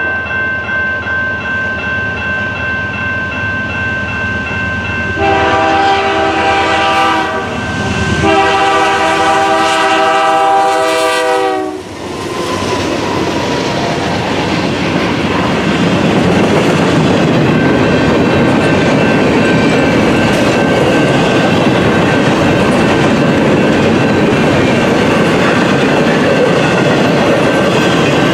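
Canadian National freight train led by a GE C44-9W diesel locomotive, sounding its multi-chime air horn as it approaches, ending in two loud long blasts, the second about three and a half seconds long. The locomotives and a double-stack container train then roll past with a steady rumble and wheel clatter, and a grade-crossing bell rings throughout.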